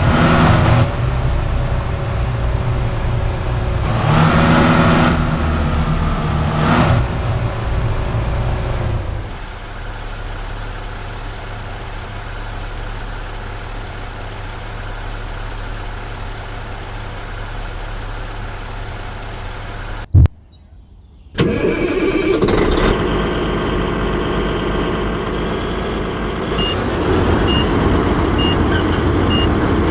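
Excavator engine running: it revs up several times, then settles to a steady idle. After a short silent break about 20 seconds in, the engine runs again, with a series of evenly spaced high beeps near the end.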